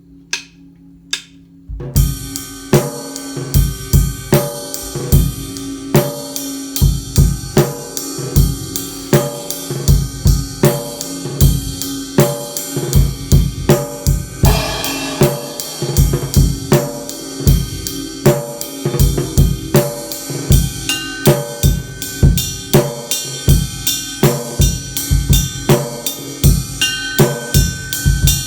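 Three sharp clicks in the first two seconds, then a drum kit played steadily with a 20-inch Zildjian Planet Z ride cymbal over kick drum and snare; the ride has a sharp, bright tone. A brighter cymbal wash rings out about halfway through.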